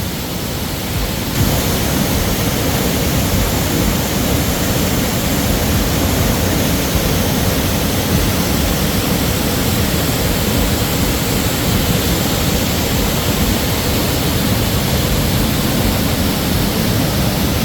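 Steady rushing of a river, a loud even noise with no breaks, rising a little about a second and a half in.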